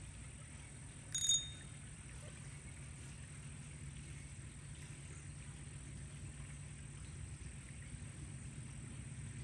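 A single short, high-pitched ring about a second in, over a steady low background hum.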